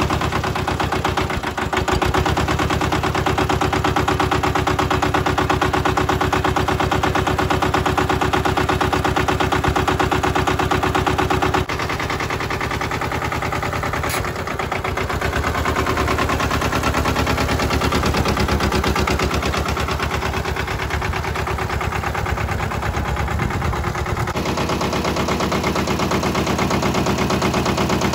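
Mitsubishi MT372 garden tractor's 0.7-litre two-cylinder diesel engine running just after a start on starting fluid, with a rapid, even diesel clatter. Its dash has been modified, so the glow plugs can't be used.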